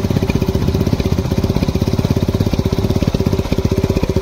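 Honda Activa scooter engine idling with an empty plastic bottle fixed over its exhaust, giving a rapid, even pulsing putter, a home-made trick to make it sound like a Royal Enfield Bullet.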